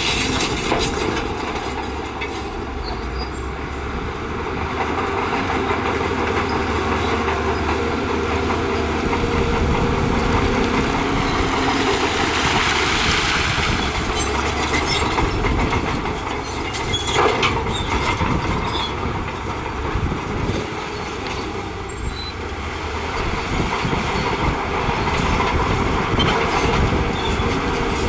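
Shantui bulldozer working: its diesel engine running under load with the steel tracks clanking, and scattered knocks and a rush of scraping as rock is pushed.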